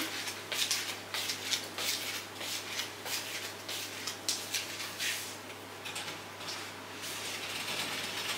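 Irregular rustling and scuffing from people moving about and handling heavy fabric curtains, over a steady low hum.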